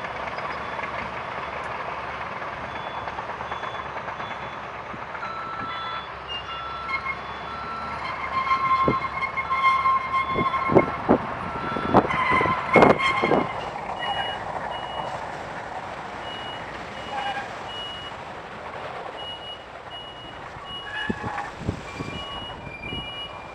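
Backup alarms of heavy equipment beeping in steady repeats, several at different pitches, over the steady noise of engines. About halfway through comes a run of sharp knocks.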